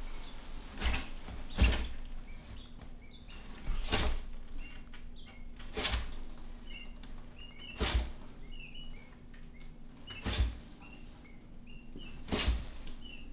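Quail chicks peeping in short, falling chirps, mixed with dull knocks every second or two on the plastic tub as an Argus monitor lizard swallows a chick.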